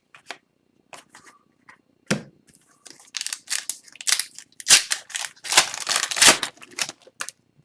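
Upper Deck hockey card pack and cards handled by hand: the wrapper crinkling and tearing and the cards scraping as they slide past each other. The sounds come as short, irregular scrapes, sparse at first and packed close together from about three seconds in.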